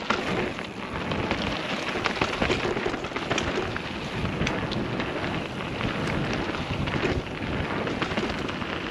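Mountain bike tyres rolling fast over a rough, stony trail: a steady crackle and crunch of gravel with constant small clicks and rattles from the bike.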